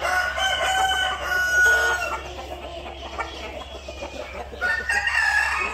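Roosters crowing: one long crow in about the first two seconds, and another crow starting near the end.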